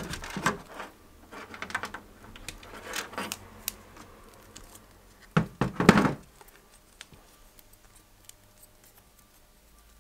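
Electrical tape being pulled off the roll and wrapped around a bare wire joint to insulate it, in several short rustling, crackling bursts. The loudest comes about five and a half seconds in, and the handling dies away after about six seconds.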